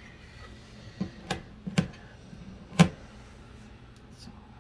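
A few short knocks and taps from hands handling a shadowbox frame and its paper layers on a tabletop, four in all, the sharpest near three seconds in.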